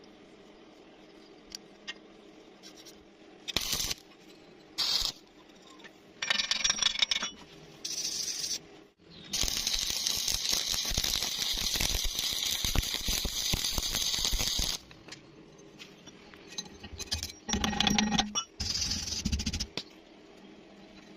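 Welding arc crackling in bursts: several short bursts, then one long run of about five seconds in the middle, then a few more short bursts.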